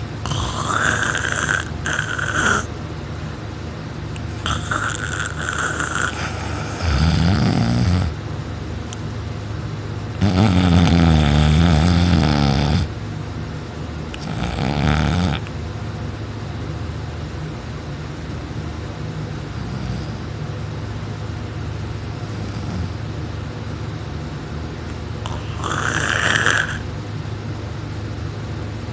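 A person snoring loudly while asleep on her back with her mouth open: six irregular snores, the longest and loudest about ten seconds in, then a long pause before one more near the end.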